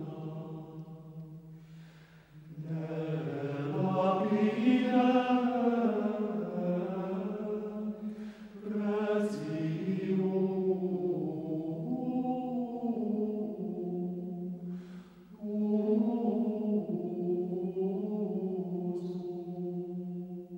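Plainchant sung in a low male range: a single melody line of slow held notes stepping up and down, in three phrases with short pauses for breath about two, eight and fifteen seconds in.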